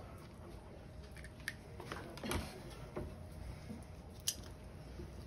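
Gloved hands handling tape and supplies on an exam table: soft rustling with a few sharp clicks, the clearest about four seconds in.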